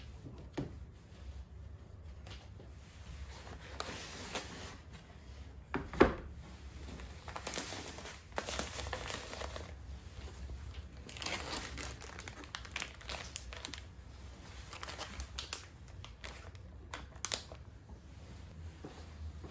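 Packaging being crinkled, rustled and torn by hand in several stretches, with one sharp knock about six seconds in.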